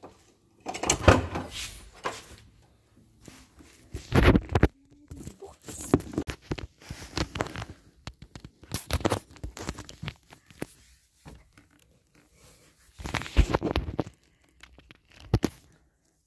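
Rustling and crinkling close to the microphone as someone shifts about in a cramped hiding spot. It comes in irregular bursts with short pauses between them.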